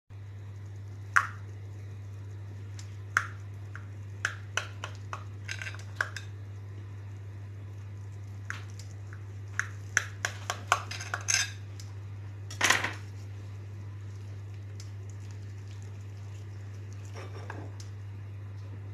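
A metal knife and a wooden spoon clinking and scraping against a glass baking dish as a cheese-topped bake is cut and served: a run of sharp, separate clinks, thickest about ten to eleven seconds in, with one louder clatter a little after. A steady low hum sits underneath.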